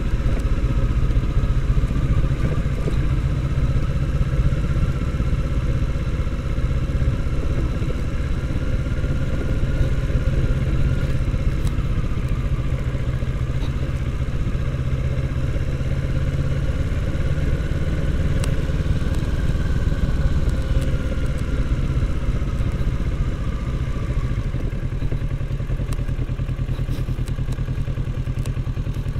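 Kawasaki Z650 motorcycle's parallel-twin engine running at low, steady revs while riding down an unpaved dirt road, its note slowly rising and falling. Occasional clatter comes from the bumpy surface.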